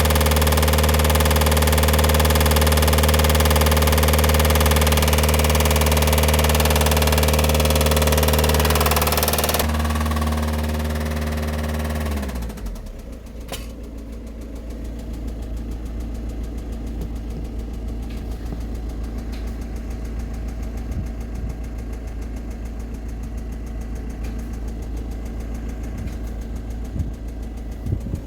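Volkswagen Touran's 1.9 TDI four-cylinder diesel idling with the knocking noise under diagnosis, then switched off about twelve seconds in, its note running down and stopping. A quieter steady low hum remains afterwards.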